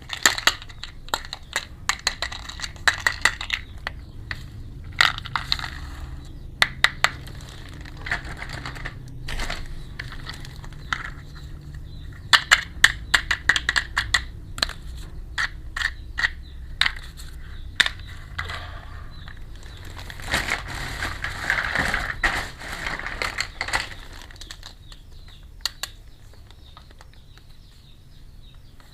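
Unboxing of a miniature plastic toy kitchen set: packaging crinkling, with many small plastic pieces clicking and tapping against each other. The crinkling is densest in a stretch about three-quarters of the way through.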